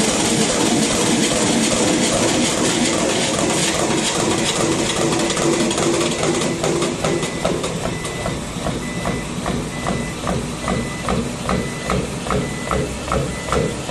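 Metal spinning lathe running, its forming roller pressing a large spinning sheet-metal disc into a cone, with a dense hiss and a steady hum. About halfway through the sound turns into a rhythmic pulsing, about two pulses a second.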